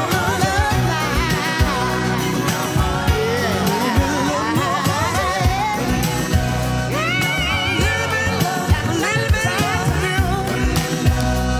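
Background pop song with a singing voice over a steady beat.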